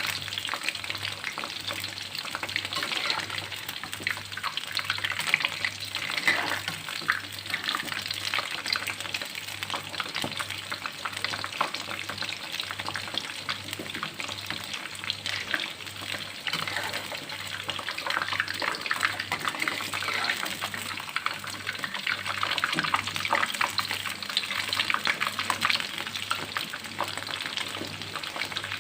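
Flour-battered shrimp deep-frying in hot oil, a steady sizzle thick with small crackles.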